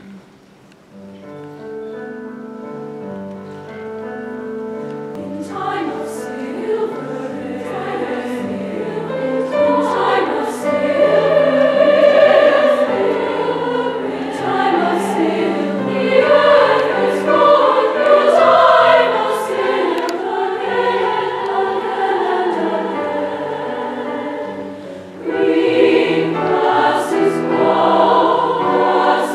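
Large choir singing a slow classical choral piece: it begins softly, swells to full voice, thins briefly and returns with a strong new entry near the end.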